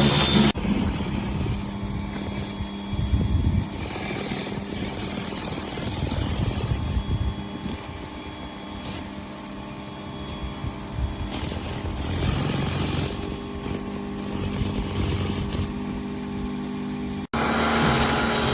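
Greenworks 1800 psi electric pressure washer running and spraying through a surface cleaner attachment: a steady motor hum under a hiss of water. The sound changes abruptly about half a second in and again near the end, where it briefly drops out and comes back louder.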